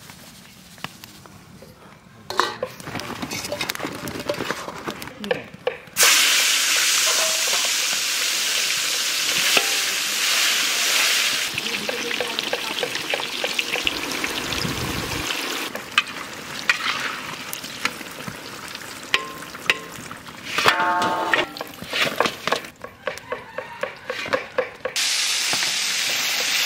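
Eggplant slices coated in salt and turmeric sizzling as they fry in hot oil, loud and steady from about six seconds in. Clinks and scrapes of a utensil handling them come and go.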